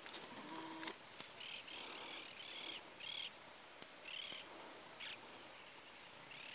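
A bird calling over open pasture: a series of about six short, high calls spread over a few seconds, faint against outdoor background hiss.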